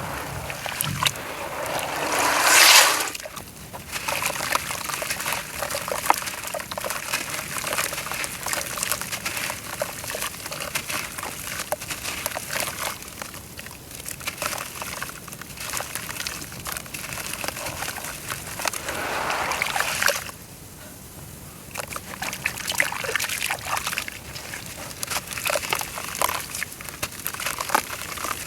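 Crunchy dry brown dirt crumbling in water: a steady watery sloshing and trickling, dotted with many small crackles. A louder rushing swell comes about three seconds in, and another just before twenty seconds cuts off suddenly.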